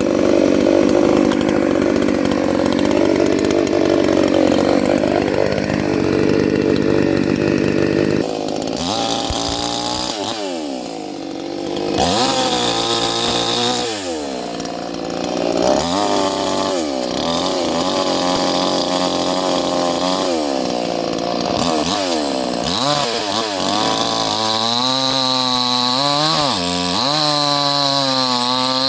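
58 cc two-stroke chainsaw cutting through wet pine logs, the engine held under load for the first several seconds. It then revs up and drops back toward idle again and again.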